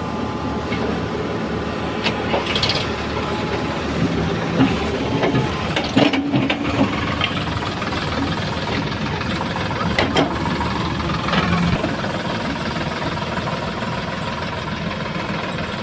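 Heavy diesel engine running steadily, with a few short knocks.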